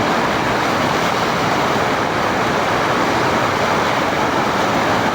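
Flowing river water making a loud, steady rush.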